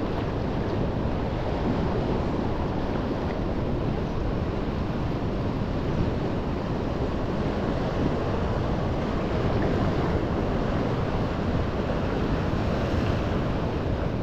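Sea waves and surf washing steadily, with wind noise on the microphone.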